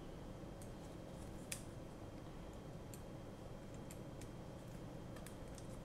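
Faint, scattered small clicks and ticks of hands handling a small FPV drone's frame and cables, with one sharper click about one and a half seconds in.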